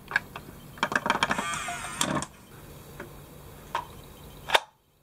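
Clicking of a First Alert safe's keypad buttons being pressed and its lid unlatching, with a brief ring of metal, then a few scattered handling clicks and one sharp click about four and a half seconds in. The sound then cuts out abruptly.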